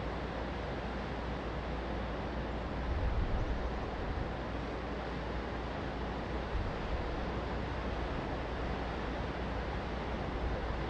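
Ocean waves and wind: a steady rush of surf with wind buffeting the microphone, gusting a little harder about three seconds in.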